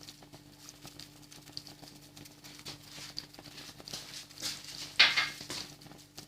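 Egg frying in olive oil with garlic in a pan: faint crackling and light irregular ticks, with one brief louder sizzle burst about five seconds in.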